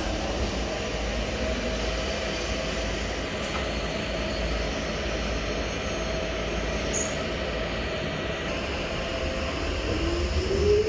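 Electric train rumbling steadily along the track with a faint held tone. Near the end an electric motor whine rises in pitch as a train accelerates.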